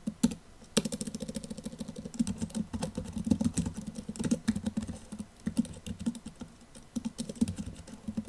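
Typing on a computer keyboard: a run of quick, irregular key clicks with a brief pause about a second in, over a steady low hum.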